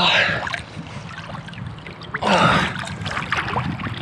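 Two loud, forceful breaths from a swimmer in ice-cold water, about two seconds apart, over water lapping and sloshing at the camera.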